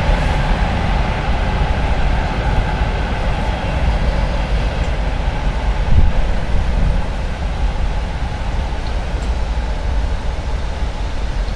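Freight train of tank cars and boxcars rolling past on the rails: a steady rumble of wheels on track, with one louder knock about six seconds in.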